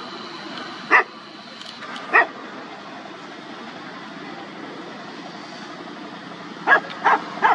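Dogs barking in short single barks: one about a second in, another a second later, then three in quick succession near the end, over a steady background noise.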